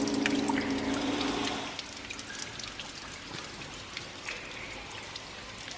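Water dripping and trickling from the roof of a wet brick railway tunnel: scattered drops land throughout. A steady low hum is also heard and fades out after about a second and a half.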